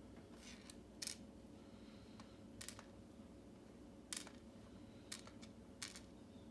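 Light, sharp metal clicks, about seven spaced irregularly, as the small brass pins and parts of a Yale mortise cylinder lock are handled and set down during gutting.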